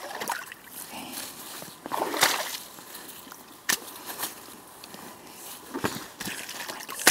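Rubber wellington boots sloshing and splashing through a shallow muddy puddle, one uneven step after another, the loudest splash about two seconds in.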